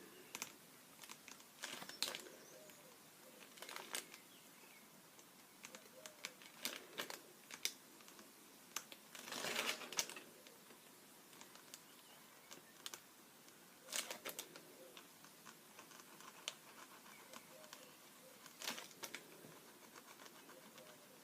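Scattered light taps, clicks and rustles from craft materials and tools being handled on a tabletop, with a longer rustle about halfway through.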